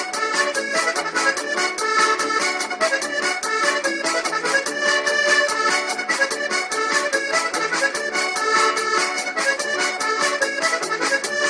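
Background music with held chords over a fast, steady beat.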